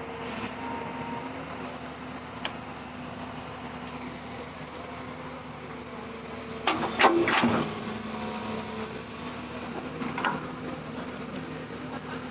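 JCB backhoe loader's diesel engine running steadily, with a short loud clatter of knocks about seven seconds in and a few fainter single knocks.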